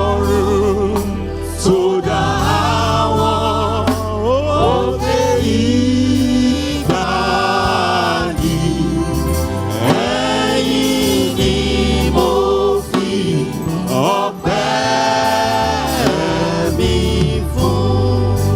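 Gospel praise and worship music: voices singing a slow, drawn-out melody with vibrato over a sustained bass accompaniment.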